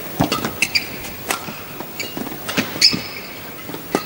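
Badminton rally: several sharp racket strikes on the shuttlecock at irregular intervals, mixed with short high squeaks of court shoes on the court mat as the players lunge and push off.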